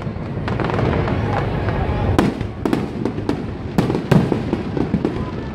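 Fireworks display: aerial shells bursting in quick succession, with repeated sharp bangs over a continuous crackling din.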